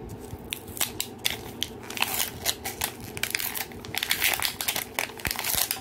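Plastic wrap crinkling and crackling as it is peeled and torn off a 5 Surprise mini capsule ball. It is a fast, irregular run of sharp crackles that grows busier about two seconds in.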